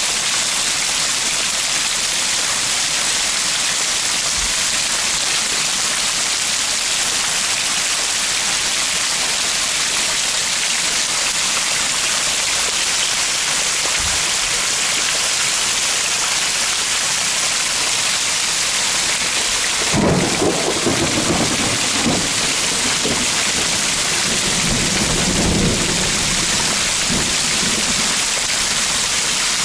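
Heavy rain pouring down steadily, with a roll of thunder that breaks suddenly about two-thirds of the way through and rumbles on for several seconds.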